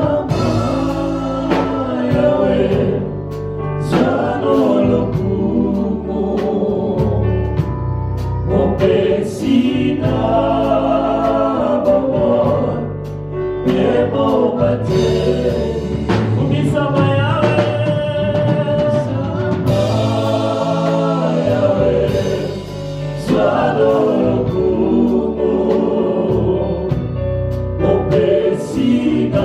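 Gospel worship music: a choir singing a praise song in sung phrases of a few seconds each, with sustained low accompaniment beneath.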